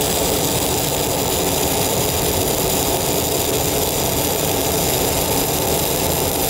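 Stick-welding arc of a 1/8-inch 6010 electrode burning at about 90 amps in a vertical-down straight drag on 10-gauge steel plate, held at a short arc length: a steady, dense crackle with no break.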